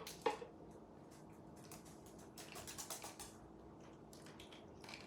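Faint scattered clicks and light taps of a parrot handling small toy pieces with its beak, over a low steady hum.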